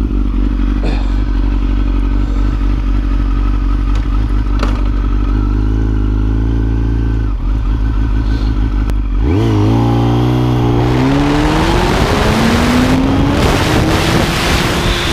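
Kawasaki ZX-10R sport motorcycle's inline-four idling steadily, with a short blip of the throttle, then launched hard about nine seconds in for a 0-100 km/h run. The engine pitch climbs, breaks at a gear change and climbs again, while wind noise builds with speed.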